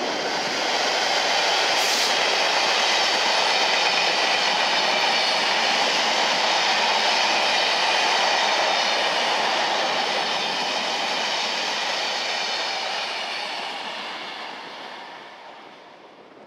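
Freight train of box wagons behind a Class 66 diesel locomotive rolling past: steady wheel-on-rail noise with several high ringing tones from the wheels and a single sharp click about two seconds in, fading away over the last few seconds as the train recedes.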